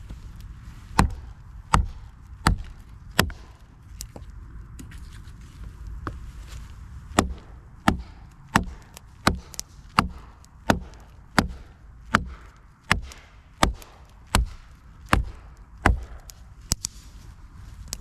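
Hatchet chopping a dead branch into lengths on the ground. There are a few sharp blows near the start, then after a pause a steady run of blows, about one every two-thirds of a second.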